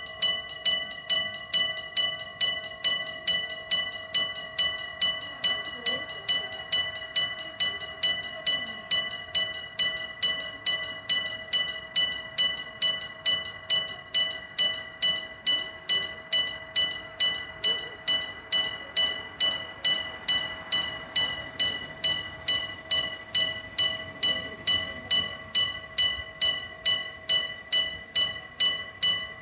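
Electric bell of a railway level crossing ringing a steady run of metallic strokes, about two and a half a second, each dying away before the next: the crossing's warning that a train is coming.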